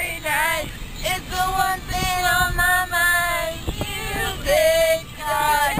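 A girl's voice singing, holding long, wavering notes.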